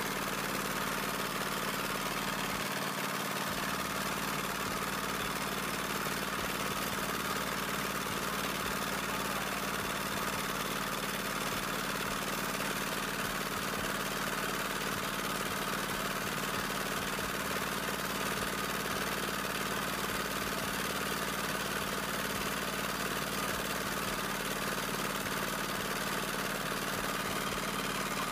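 An engine running steadily at a constant pitch, with no change in speed.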